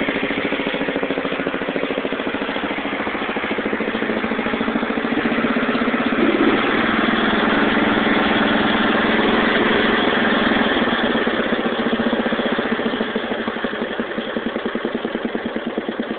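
Small engine of a True Value Lawn-Chief ride-on lawn mower running steadily; it picks up and grows louder about six seconds in, then settles back down near the end.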